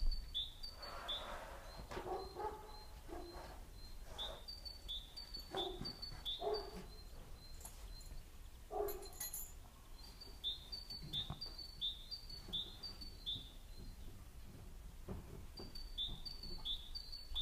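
Early spring birdsong outdoors: a songbird repeats a short, high two-note phrase over and over in several bouts. A few short, lower calls come at intervals in the background.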